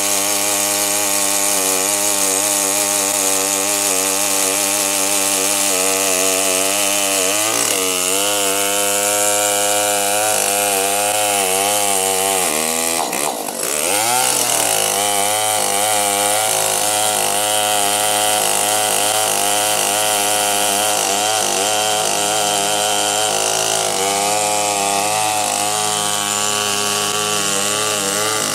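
Large two-stroke Stihl chainsaw running at full throttle while cutting through a thick log, its engine note wavering under load. About halfway through, the engine pitch dips briefly and then picks back up.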